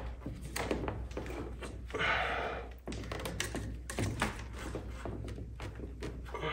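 Light taps and knocks of PVC drain pipe and fittings being handled and pressed together overhead as a glued joint is set, with a brief rustling noise about two seconds in, over a steady low hum.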